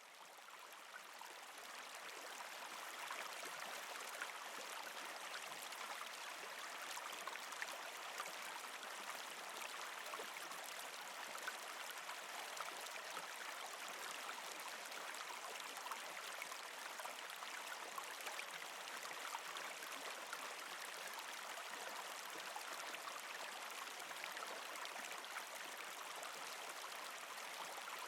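Mountain stream babbling over rocks: a steady rush of running water with many small splashes and gurgles. It fades in over the first few seconds.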